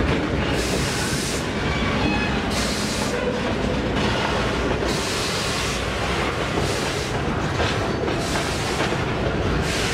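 Metre-gauge freight train of loaded wagons rolling past close by, wheels clattering over the rails. The low diesel rumble of the trailing C30-7 locomotive fades at the start, and a rushing hiss from the wheels surges every second or two.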